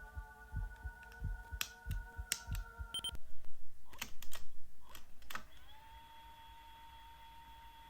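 An AIWA HS-JX849 cassette Walkman with its controls clicking several times, sharp clicks over about four seconds. A playback with a low, regular thumping beat stops about three seconds in, and a steady whistle-like tone starts near the middle.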